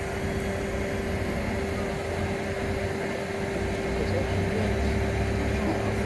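Mobile crane's engine running steadily under load while it holds and lowers a 30-ton steel barge, with a constant whine over a low rumble that grows louder about four seconds in.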